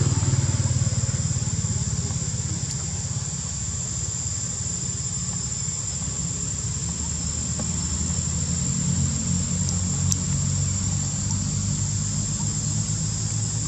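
A steady, high-pitched insect drone over a low, steady engine-like rumble.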